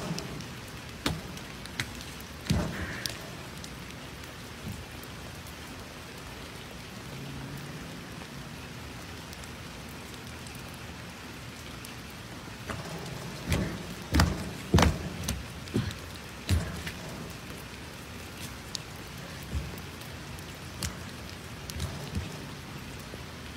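Steady rain falling on a wooden deck, with scattered knocks and thumps on the boards and a cluster of louder thumps about halfway through.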